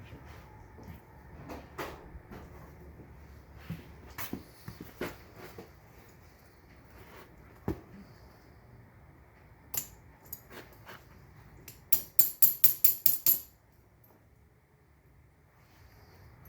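Steel tire chain links clinking and jingling as they are handled, with scattered single clicks and, about three quarters of the way in, a fast run of about ten sharp metallic clicks.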